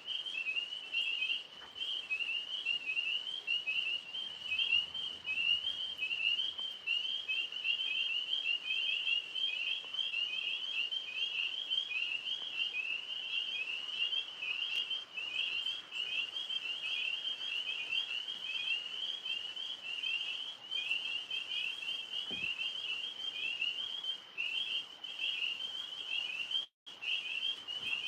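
A chorus of tree frogs calling continuously: many rapid, high, chirping notes overlapping in an unbroken pulsing trill.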